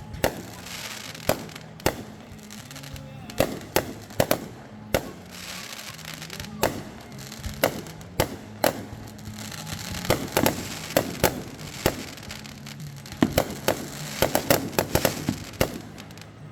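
Fireworks going off: a string of sharp bangs at irregular intervals over a steady crackle, bunching into a rapid flurry of reports about three quarters of the way through.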